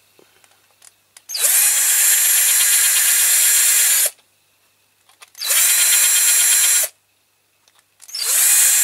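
Electric drill with a twist bit drilling out the rivet of a diecast toy tractor. It runs in three bursts, the first the longest at about three seconds. Each burst starts with a rising whine as the drill spins up.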